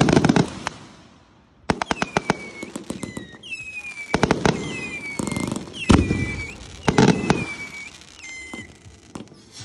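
Fireworks: aerial shells bursting with loud bangs and bursts of rapid crackling. Five or six high whistles drop quickly in pitch and then hold steady, one after another in the middle of the stretch.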